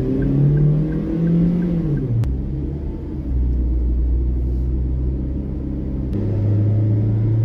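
Car engine and road noise from a moving car in traffic: the engine note rises as it accelerates, drops about two seconds in, then settles into a steady low drone.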